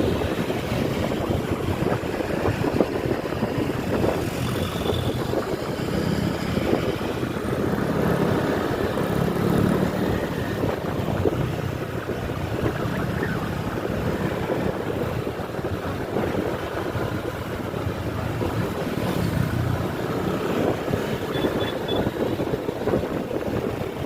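A vehicle on the move: steady engine and road rumble with wind buffeting the microphone, unchanging throughout.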